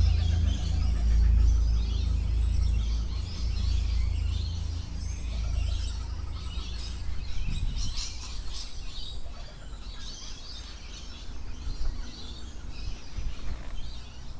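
Closing sound bed: a deep low drone fading out over the first half, under birds chirping that carry on and fade away near the end.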